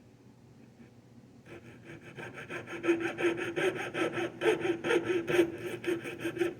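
Coping saw cutting through wood with quick back-and-forth strokes, starting about a second and a half in, its tensioned blade giving a steady ringing tone under the rasp of the strokes.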